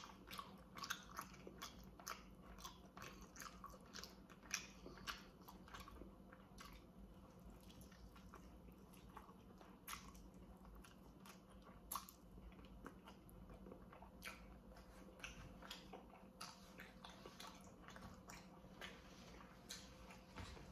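Close-up chewing and biting of baked chicken drumstick meat: faint, irregular wet mouth clicks and smacks, a few of them sharper.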